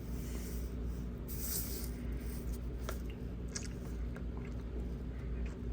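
Steady low hum with faint rustling and a few small, sharp clicks, like small objects being handled.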